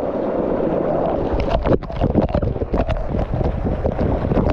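Waterfall water pouring down in a loud, steady rush. From about a second and a half in, it is joined by irregular splashing hits as the water breaks over someone sitting right under the falls.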